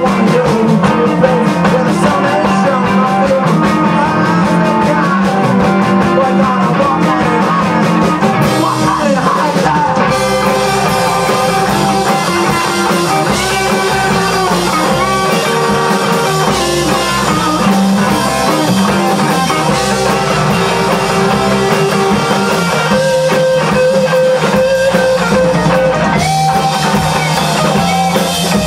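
Live rock band playing, with guitars over a drum kit.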